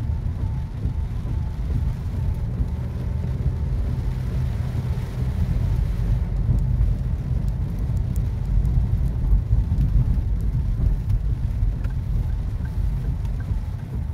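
Inside a moving car in the rain: a steady low rumble of the car running on a wet road, with rain hitting the windscreen and a few sharp drop ticks in the middle.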